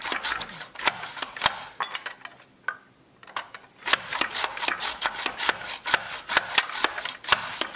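Baby carrot rubbed quickly up and down a handheld grater with a catch container: a fast run of rasping scrapes, about five a second, with a pause of a second or so about two seconds in before the strokes resume.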